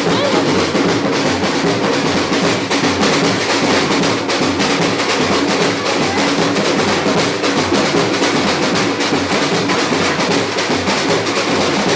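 Batucada samba drum ensemble playing a dense, unbroken drum rhythm at a steady loud level.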